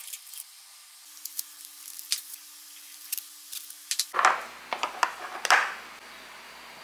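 Paper sticker labels being pressed and smoothed onto glass jars: light crinkling and rubbing, then a louder run of rubbing and scraping about four seconds in as the jars are handled and set on a stone countertop.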